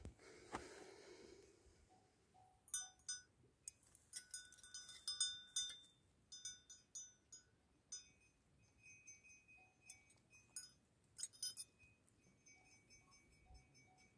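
Metal tether chain on a Tibetan Mastiff clinking faintly as the dog moves and eats: irregular clusters of short, ringing clinks.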